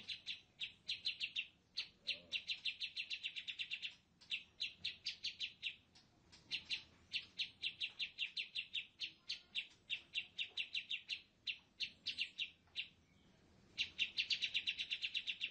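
Bird trilling: runs of rapid, evenly repeated high chirps, about eight a second, each run lasting one to two seconds with short breaks between.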